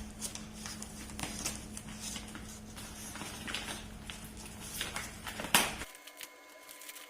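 Wrapping paper rustling and crackling in quick, irregular strokes as a present is unwrapped, with one louder rustle about five and a half seconds in; the sound turns thin and quieter abruptly near the end.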